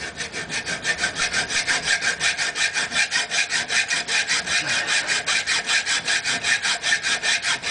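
Hacksaw cutting through a copper pipe held in a vise, with quick, even back-and-forth rasping strokes.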